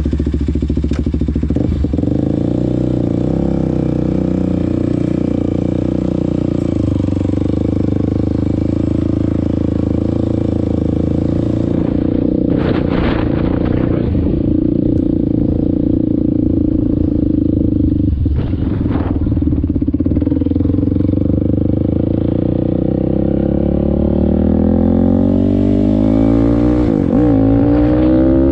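Kawasaki KFX450R quad's single-cylinder four-stroke engine idling steadily just after starting, with two short noises in the middle, then climbing in pitch as it revs near the end.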